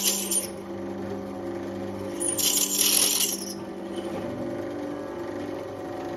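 Drill press boring through a leaf-spring steel knife blank, with steady tones and a hissing burst about two seconds in that lasts about a second.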